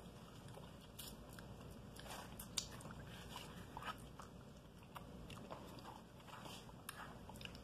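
Faint close-miked chewing and eating sounds, with scattered small clicks and ticks, the sharpest about two and a half seconds in.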